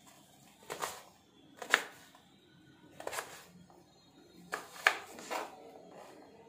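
A knife cutting an apple into small pieces: several short, sharp cuts at uneven intervals, roughly a second apart.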